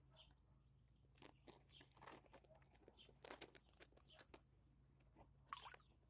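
Faint crunching and crackling of dry fish-food flakes being crumbled between fingers: scattered clicks through the middle, with a sharper burst about five and a half seconds in, over a low steady hum.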